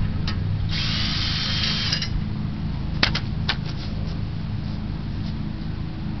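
Electric linear actuator motor whirring as it drives a homemade solar tracker and tilts the panels, over a steady low hum. There are two sharp clicks about three seconds in.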